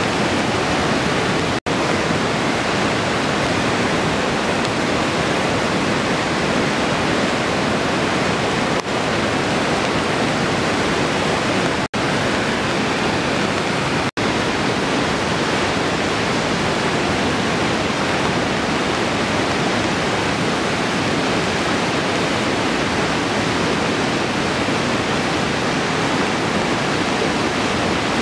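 Swollen, silt-laden river in flood, its fast turbulent water rushing with a loud, steady noise, broken briefly by three short silent gaps.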